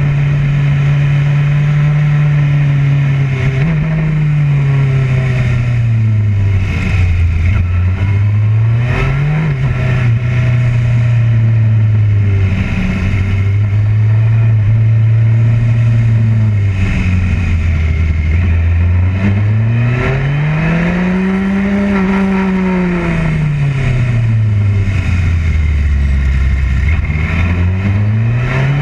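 Motorcycle engine heard on board the bike, its note holding steady, then dropping and climbing several times as the rider rolls off and opens the throttle through the corners, over steady wind rush.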